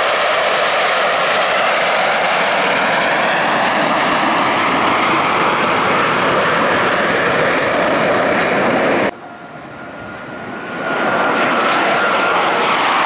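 A formation of six Blue Angels F/A-18 Super Hornets flying past, their jet engines giving a loud, steady rushing roar. About nine seconds in the sound cuts off suddenly to a much quieter level, then swells back up over a couple of seconds with a faint high whine as the jets come on again.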